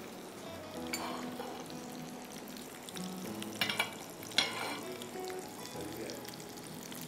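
Crumb-coated red snapper fillets frying in hot oil in a non-stick pan, a steady sizzle. A few sharp clicks of a spatula against the pan come around the middle.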